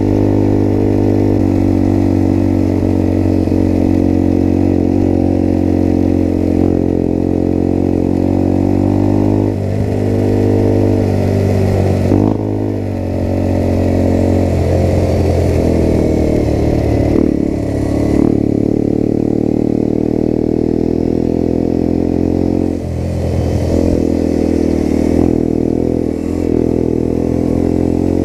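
Small motorcycle engine running under way while riding. Its pitch drops and climbs again several times, as the throttle is eased off and opened.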